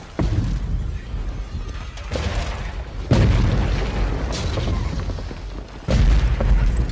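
Film destruction sound effects: a series of four heavy booming impacts, each followed by a deep rumble that fades. The biggest hits come about three seconds in and near the end.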